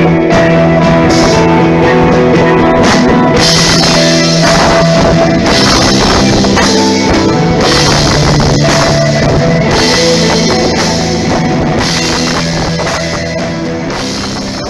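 Rock band playing live: electric guitar over a drum kit with bright cymbal crashes, starting to get quieter about ten seconds in.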